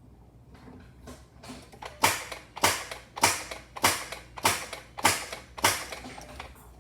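2007 Jeep Wrangler JK clicking as it fails to start: a few faint clicks, then about seven loud, sharp clicks evenly spaced a little over half a second apart.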